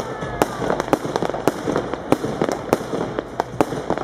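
Bon Fireworks 'The Emperor' firework cake firing, a rapid, irregular series of sharp bangs at about three a second.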